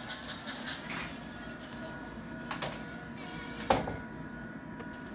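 Vari*Lite VL4 moving head running its power-up self-test: a steady motor whir with faint tones as the head pans and tilts, broken by three clicks, the loudest about three and a half seconds in.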